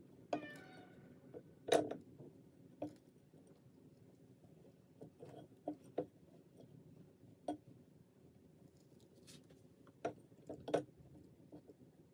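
Quiet, scattered light clicks and taps of small objects being handled, with a short squeak-like tone about half a second in.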